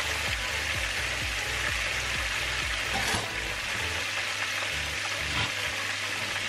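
Two whole snappers shallow-frying in hot vegetable oil in a pan, making a steady sizzle.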